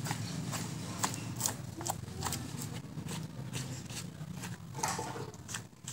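Hands and a knife working raw meat on a hanging goat carcass: irregular sharp clicks and small snaps as meat and membrane are cut and pulled apart, over a low steady rumble.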